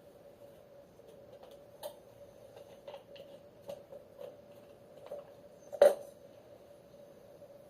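Light taps and clicks of household items being handled, with one sharp knock about six seconds in, over a steady faint hum.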